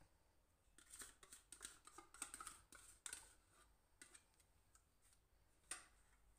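Faint clicks and light taps of metal hand-mixer beaters being handled and snapped into an electric hand mixer, scattered irregularly, with one sharper click near the end. The mixer is not running.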